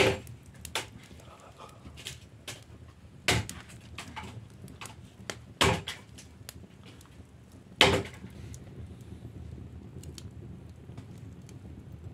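Wood fire burning, its logs crackling with sharp pops and cracks: four loud ones a couple of seconds apart and several fainter ticks between them, over a low steady background noise.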